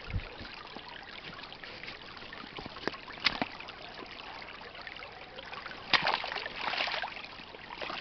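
Small stream of dark bog water trickling steadily, with a few brief clicks and a short rustle about six seconds in.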